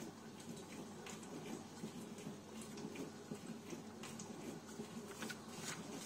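Cookology CMDW2 tabletop dishwasher running its wash, its spray arm sending water pattering against the inside of the closed tub, in what the owner takes for the cold rinse. A few faint ticks sound over the steady wash noise.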